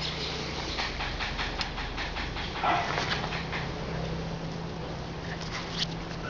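Rough collie puppies playing on a concrete floor: a run of light clicks from paws and claws, with a short puppy yip about three seconds in, over a faint steady low hum.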